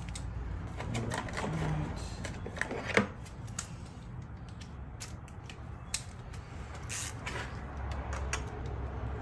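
Metal hand tools clicking and clattering in an engine bay during spark plug work: irregular light clicks with one sharper click about three seconds in.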